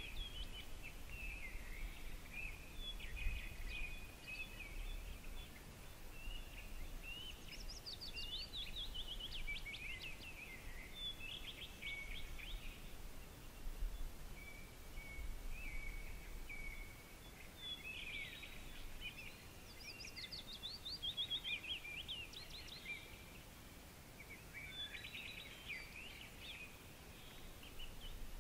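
Songbirds singing outdoors: repeated phrases of warbles and quick downward-sweeping notes, over a faint steady hiss and a low rumble.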